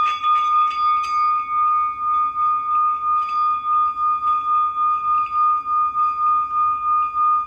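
Singing bowl ringing with one steady, high-pitched tone and a regular wobble of about three pulses a second. There are a couple of light clicks in the first second or so.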